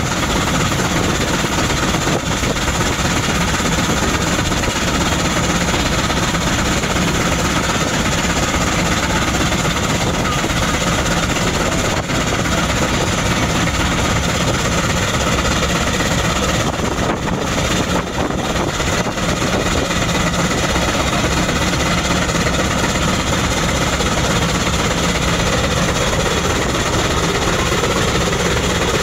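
Antique steam traction engine running steadily under load, driving a generator through a long flat belt: a constant, loud mechanical running noise.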